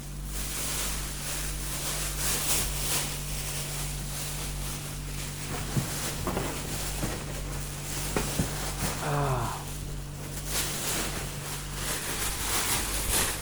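Handling noises around a small refrigerator: rustling with a few sharp knocks and clicks in the middle, over a steady low hum, and a short voiced sound about nine seconds in.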